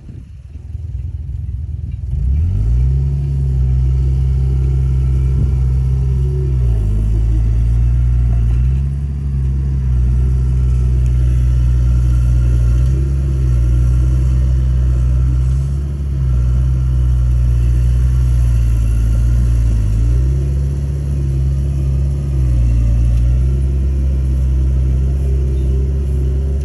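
Komatsu D31A bulldozer's diesel engine running loud. It revs up about two seconds in and then holds high revs, its pitch dipping briefly and recovering several times.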